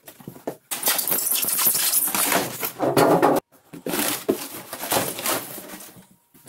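Styrofoam packing lid squeaking and scraping against a cardboard box as it is pulled out, with cardboard flaps rustling, in two long stretches broken by a short pause about halfway.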